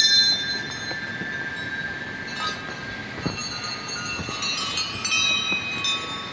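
Metal bells ringing: a bell is struck at the start, more about three seconds in and again about five seconds in, each ringing on in long, high, steady tones that overlap.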